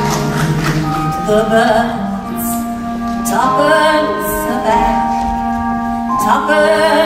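Slow orchestral music: sustained notes under a gentle melody that slides up into a new held phrase about every three seconds.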